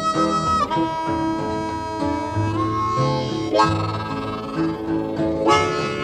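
Instrumental break in a 1960s electric blues recording. A harmonica plays long, held notes, one bending down in pitch about a second in, over a guitar and bass backing.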